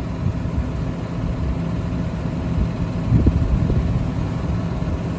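John Deere tractor's diesel engine idling steadily while the rear linkage hydraulics are worked from the fender button, with a few short low knocks about three seconds in.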